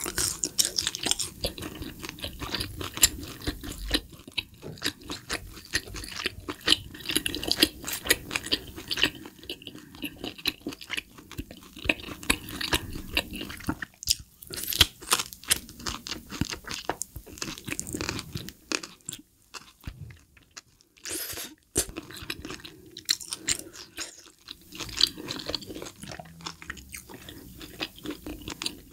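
Close-miked chewing of grilled hanwoo tomahawk steak and asparagus: quick runs of wet, crunchy bites, broken by a few short pauses about halfway through.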